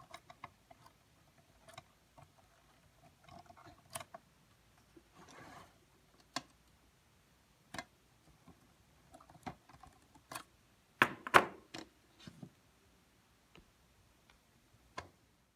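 Irregular clicks and knocks of pliers working around a glazed wooden clock door, with a short scrape about five seconds in. The loudest cluster of knocks comes about eleven seconds in.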